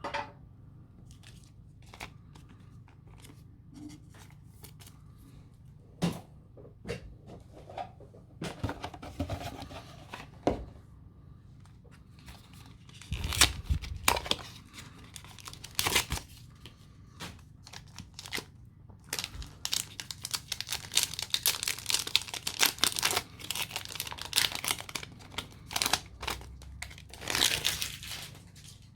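A Pokémon card booster pack's foil wrapper being torn open and crinkled, with cards being handled. Scattered sharp rustles and clicks at first, then steady crinkling through most of the last ten seconds.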